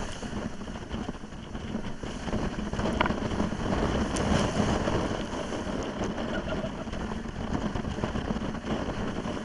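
Wind rushing over the microphone and water noise on a banana boat being towed at speed, with a couple of brief clicks.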